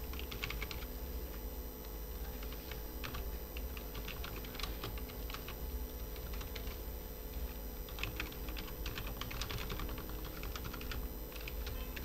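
Computer keyboard being typed on: a run of irregular key clicks, some in quick bursts, over a steady low hum.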